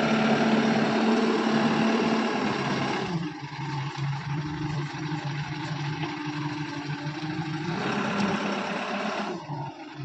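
Escorts backhoe loader's diesel engine running under load as the machine moves and scrapes. About three seconds in it eases off to a lower, quieter note, then picks up again near the end.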